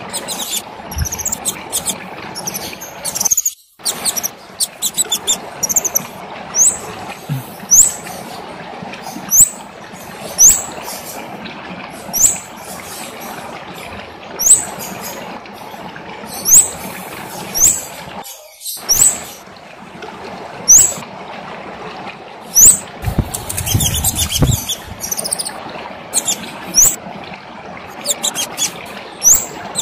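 A kemade songbird singing in sharp, high, rising chirps that repeat every second or two, over a steady background hiss. About two-thirds of the way through there is a brief low rustle with a quicker run of chirps.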